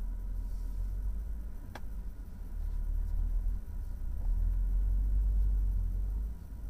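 BMW M135i's turbocharged straight-six with M Performance exhaust running at low revs, heard inside the cabin as a low, steady rumble while the car rolls slowly; the rumble swells for about two seconds near the end, then drops back. A single sharp click about two seconds in.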